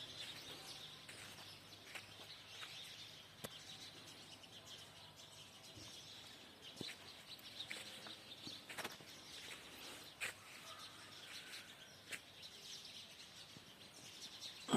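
Faint outdoor ambience: small birds chirping, with a few scattered sharp knocks.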